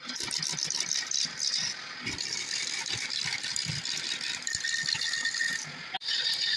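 Wood lathe spinning a wooden workpiece while a turning tool cuts it, giving a dense, rattling scrape. It cuts out for an instant about six seconds in.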